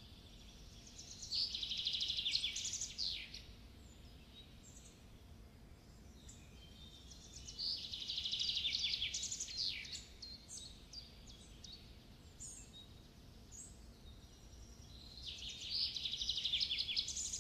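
A songbird singing: three high, rapidly trilled phrases of about two seconds each, roughly every six to seven seconds, with short single chirps in between.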